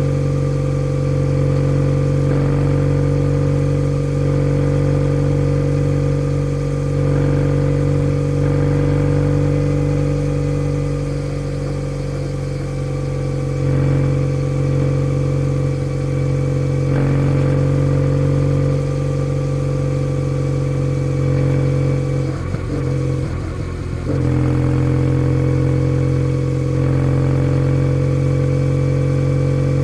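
Kawasaki W650's air-cooled parallel twin running through a POSH W1 full exhaust as the motorcycle is ridden. The note holds steady, then dips and wavers briefly about two-thirds of the way in before settling back.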